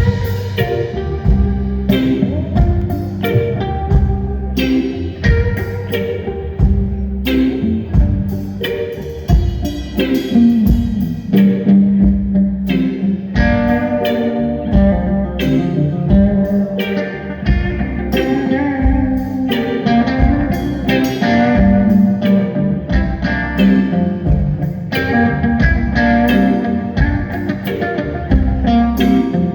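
Live rock band playing an instrumental passage: guitar over a bass line and a steady beat.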